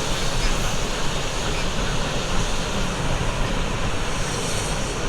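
Steady rushing roar of the Tad Fane waterfall plunging into its gorge, even in level throughout.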